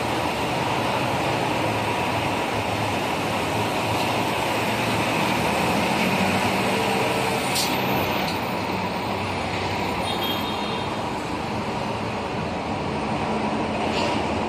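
Steady road traffic noise of buses and cars running on a busy city street.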